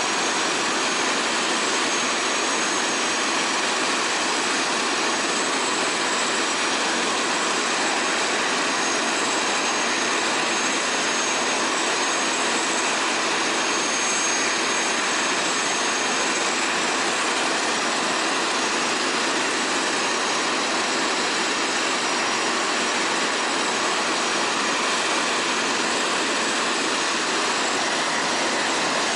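Eurocopter AS350 B3 helicopter's Turbomeca Arriel turbine engine running steadily: a high turbine whine over a constant rush of noise.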